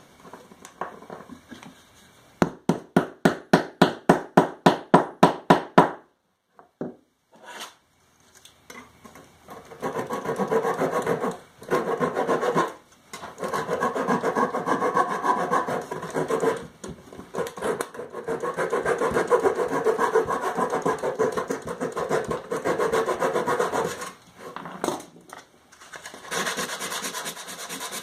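Wood being worked by hand with a cutting or abrading tool. First comes a run of quick, even strokes, about three or four a second. After a short pause there are long stretches of steady rasping, broken by a few brief stops.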